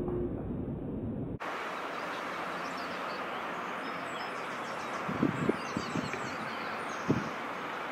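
Steady outdoor background hiss that changes abruptly from a low rumble about a second and a half in. Faint high bird chirps come through in the middle, and a few soft low thumps come past the middle and near the end.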